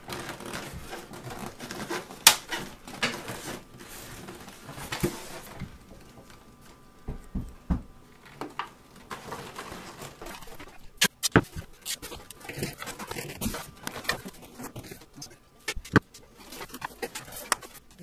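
Aluminium beer can being twisted and pushed into a styrofoam cooler lid: the foam squeaks and crunches, with irregular sharp clicks and crinkles from the can.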